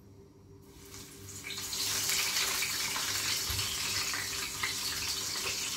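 Burger patties sizzling in hot oil in a frying pan: the sizzle starts about a second in as they go into the pan, swells, and holds steady.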